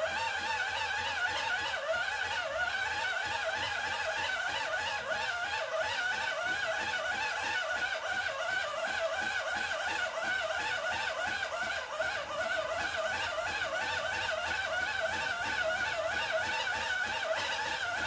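Hand-crank dynamo of an emergency radio whirring as the crank is turned steadily, a geared whine whose pitch wavers up and down with each turn. The crank is being spun to generate power for a smartphone plugged into the radio's USB port.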